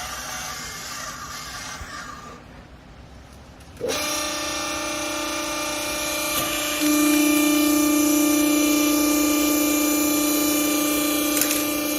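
A short stretch of hiss and clatter, then about four seconds in a hydraulic baler's electric motor and pump start with a steady whine that steps up louder a few seconds later and holds.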